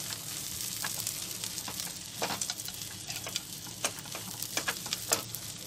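Onion, mashed potato and fried peanut filling sizzling in a nonstick kadhai while a silicone spatula stirs it, with scattered scraping taps of the spatula against the pan.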